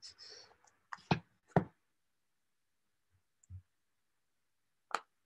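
Handling noise: a few sharp knocks and taps as a paperback book is moved about and put down, two close together about a second in, a soft thump later and one more tap near the end.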